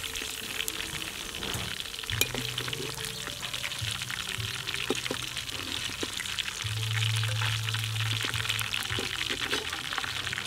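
Deep-fried pork ribs sizzling and crackling in a wok of hot oil as they are lifted out with a wire skimmer and a ladle. Background music with held low notes plays throughout.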